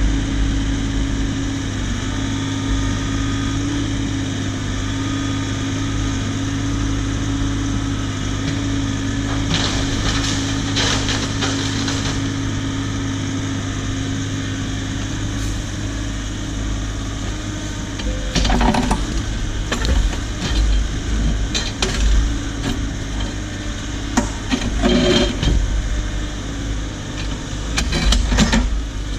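Cat 304 mini excavator's diesel engine running steadily under work. Loud clanks and scrapes come from its steel bucket working rock and debris, a cluster about a third of the way in and repeated ones through the last third.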